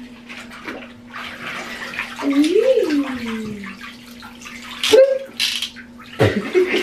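Water pouring from a bath toy onto a child and splashing into the bathwater of a bathtub, with a sharper splash about five seconds in. A short voice-like sound that rises and falls in pitch comes just before the middle, over a steady low hum.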